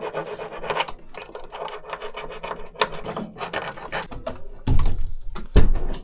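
Rasping, scraping strokes of a small tool cleaning rust and oxidation off a washing machine heating element's terminal, with small clicks. Two heavy thumps near the end are the loudest sounds.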